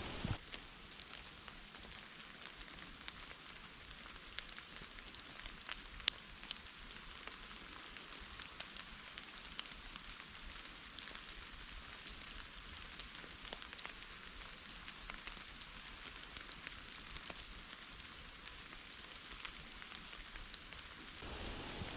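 Steady rain falling in a forest: an even hiss with many separate drops ticking through it, one a little louder about six seconds in.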